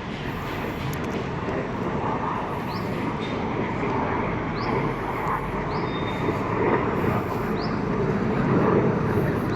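Jet aircraft of an aerobatic display team flying overhead, a steady rushing rumble that grows louder near the end.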